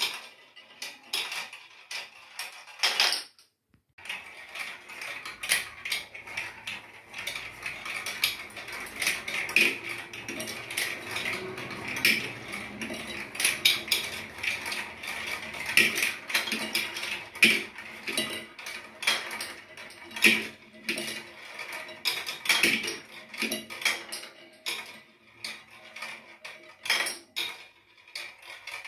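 Marbles rolling and clattering along plastic marble-run track, through spiral funnels and down a wavy slope: a running rattle with many sharp clicks. It breaks off briefly about three seconds in.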